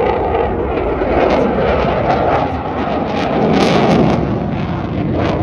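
Eurofighter Typhoon's twin jet engines roaring through a display pass, with a crackling edge, swelling to its loudest about three and a half seconds in.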